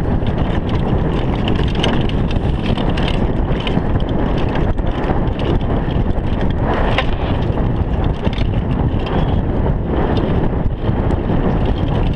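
Downhill mountain bike at speed on a grassy dirt track: steady rush of wind on the chest-mounted microphone and tyre noise, with frequent short knocks and rattles from the bike over bumps.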